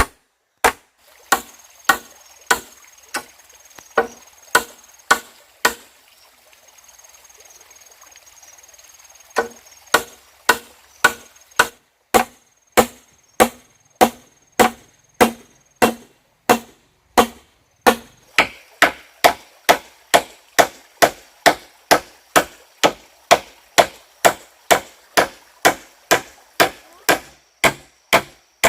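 A hand tool striking wood over and over in a steady rhythm, about one and a half to two blows a second, with a pause of about three seconds some six seconds in. A faint, high, steady tone runs between the blows.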